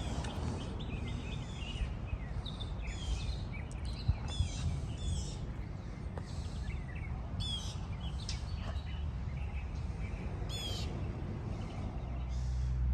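Birds calling outdoors, with short, quick chirped and trilled calls recurring every second or two over a steady low rumble.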